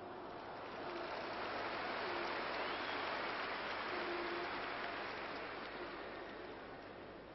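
Stadium crowd noise swelling over a couple of seconds, holding, then fading toward the end, as the crowd reacts to an attack near the goal.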